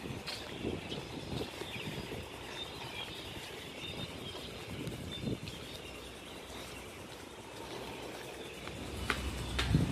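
Open-air ambience of walking on stone paving: soft footsteps about every half second over a steady background hum, with faint bird chirps now and then. Near the end a few sharp clicks and a low rumble come in, the loudest part.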